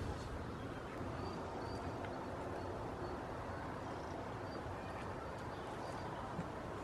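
Steady outdoor background noise with a few faint, short, high bird chirps here and there and an occasional soft click.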